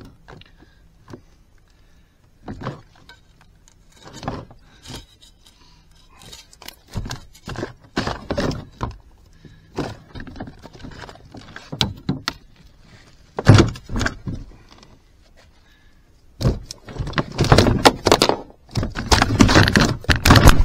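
A rubber-mesh landing net with a hooked bowfin tangled in it being handled over a plastic kayak: irregular knocks and rattles of the net's metal frame and tackle against the hull. There is one heavy thump about two-thirds of the way in and a dense run of clattering near the end.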